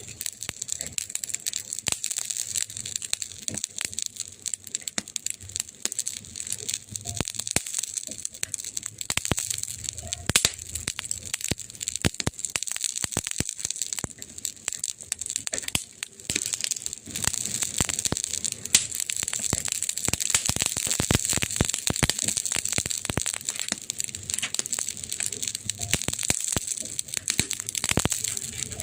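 Wood fire crackling: a steady hiss with dense, irregular snaps and pops.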